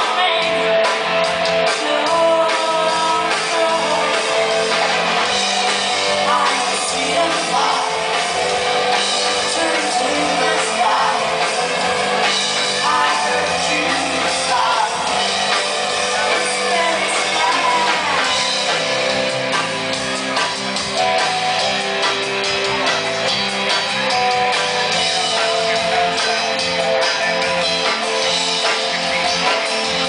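A live rock band playing: electric guitars and drums, with a woman singing.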